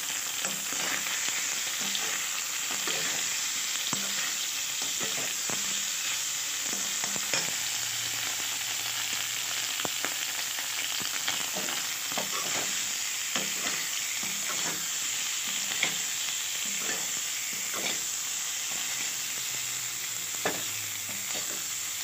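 Boiled potato pieces sizzling steadily in hot oil in a metal kadhai, with repeated scrapes and clinks of a metal spatula against the pan as they are stirred.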